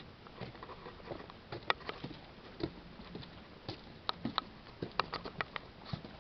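Scattered light clicks and taps at an uneven pace, several close together about four to five seconds in, like tools and parts being handled.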